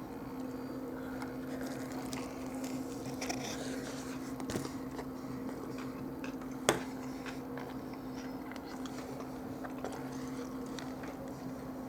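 A man chewing a mouthful of chicken Parmesan grinder sandwich, with soft wet squishing and small ticks of the food and wrapper, over a steady low hum. There is one sharp click about seven seconds in.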